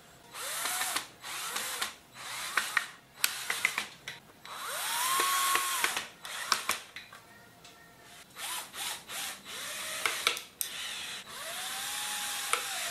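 Stanley cordless drill-driver driving screws into pocket holes in a wooden frame. It runs in about eight short bursts, the motor rising in pitch and winding down with each. The two longest bursts last over a second, and sharp clicks fall between them.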